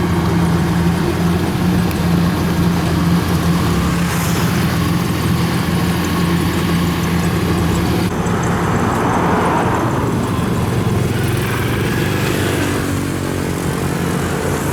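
Engine of a farm machine running steadily at a constant speed.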